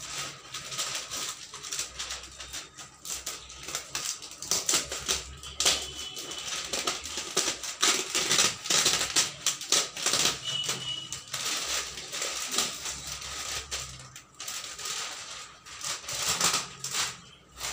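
Clear plastic shrink-wrap on a cardboard box crinkling and crackling as it is handled and pulled at: a dense, irregular run of small sharp crackles.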